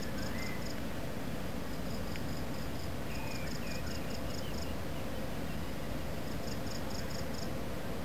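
Crickets chirping in high, rapidly pulsed bursts about a second long, repeating every couple of seconds over a steady low background rumble, with a few short whistled notes near the start and around three to four seconds in.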